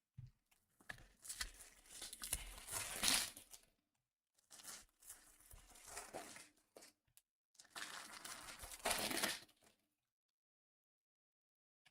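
Trading-card pack wrappers being torn open and crinkled, in three separate stretches of a few seconds each.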